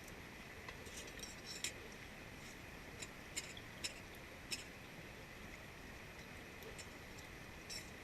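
A metal utensil lightly clicking and clinking against a pot while noodles are eaten: a few faint, sharp clicks scattered over several seconds.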